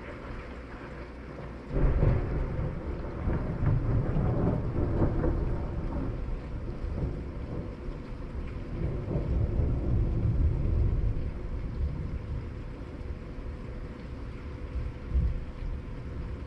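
Thunder: a sudden crack about two seconds in that rolls on as a long, deep rumble, swelling again a few times, over steady rain.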